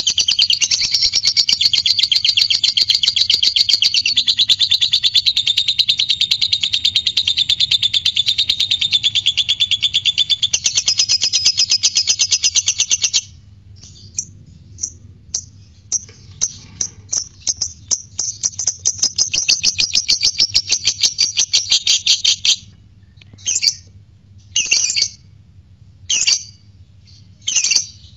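Blue-mutation masked lovebird singing a long 'ngekek' song: a fast, unbroken, high-pitched chatter that runs about thirteen seconds, breaks into scattered chirps, picks up again in a shorter run, and ends in separate short calls about a second apart.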